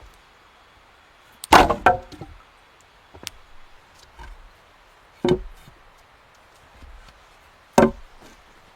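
Wood being chopped with an axe or hatchet: three loud, sharp strikes a few seconds apart, the first followed quickly by a second knock.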